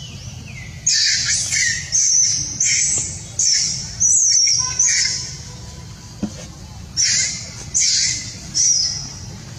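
Female macaque screaming while mounted by a male during mating: a run of shrill, high-pitched screams, roughly one every half to three-quarters of a second, breaking off for about two seconds in the middle before starting again.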